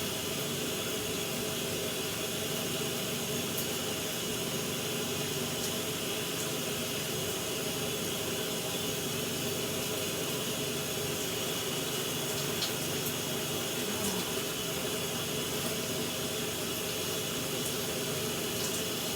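Shower running: a steady hiss of water spray, with a few faint ticks.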